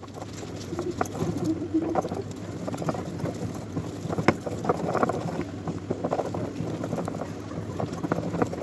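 Stone roller of a sil batta grinding wet chutney on a flat stone slab. It makes a continuous rolling, crushing scrape, with frequent small irregular knocks of stone on stone.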